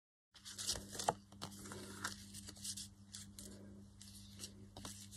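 Faint rustling and light taps of paper and card being handled as seam binding ribbon is wrapped around a tag envelope, with a steady low hum underneath. The sound cuts in abruptly after a moment of dead silence.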